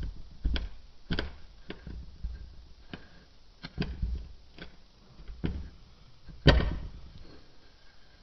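Glass rod pressed repeatedly down into kinetic sand packed in a wine glass: a series of about a dozen soft thuds at an uneven pace, the loudest about six and a half seconds in.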